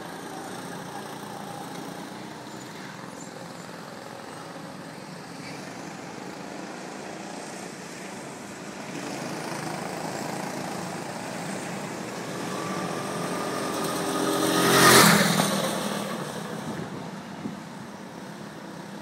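A go-kart engine running around the circuit, growing louder as the kart comes close and passes about fifteen seconds in, then fading away.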